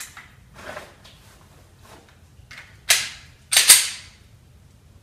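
Handgun handled during a home reloading drill: a few light clicks, then two much louder sharp clacks less than a second apart about three seconds in, ringing briefly in the room.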